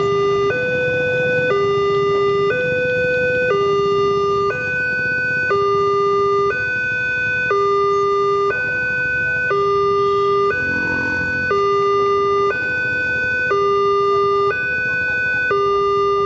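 Electronic warning alarm of a Multech railway level-crossing signal, sounding while the barriers are down for an approaching train. It alternates between a lower and a higher tone, each held for about a second.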